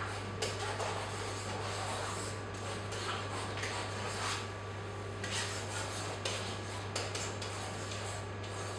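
Pen rubbing and scratching across a touch projection screen's surface while writing, with scattered light taps and clicks, over a steady low hum.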